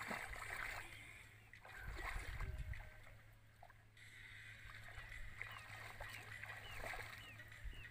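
Water sloshing and splashing softly around legs wading through a shallow river. Birds chirp in short repeated calls, more of them near the end.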